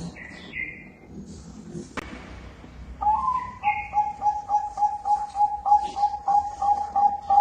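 Bangkok-bred zebra dove (perkutut) cooing: after a quieter start with a sharp click about two seconds in, it breaks into a long run of quick, even coos on one pitch, about three a second.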